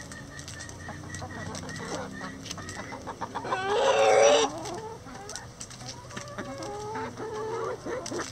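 A flock of hens clucking and murmuring as they peck at a hanging cabbage, with sharp pecking taps among the calls and one louder, longer call about four seconds in.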